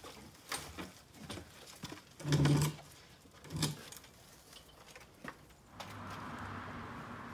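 Scattered knocks and clatter of lumber and a pole jack being handled while propping up a wooden arbor, with two louder knocks about two and a half and three and a half seconds in. Near the end it gives way to a steady hiss.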